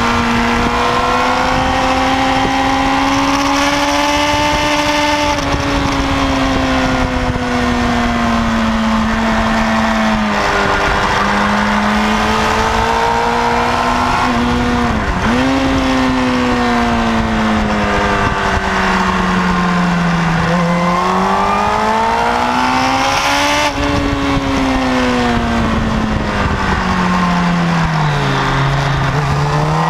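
Kawasaki ZX-10R's inline-four engine heard from on board at track speed. The engine note climbs under acceleration and drops through gear changes and braking several times, over steady wind rush.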